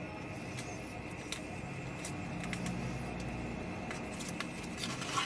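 Scattered light clicks and taps of cardstock pieces being handled and pressed together, over a steady background hum.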